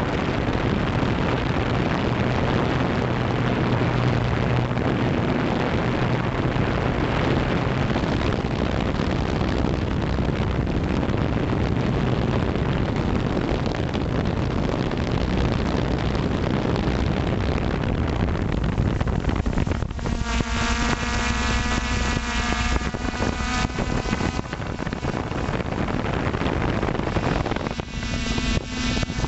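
Wind rushing over the microphone of a drone in flight, with a steady low hum under it; about two-thirds of the way in the wind noise thins and the drone's motors and propellers come through as a steady multi-tone whine, which fades a few seconds later and returns near the end.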